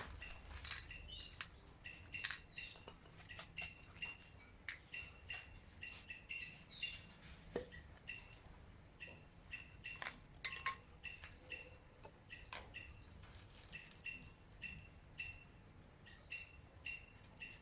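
A bird chirping over and over in a steady pattern, about two short chirps a second, with scattered clicks and knocks.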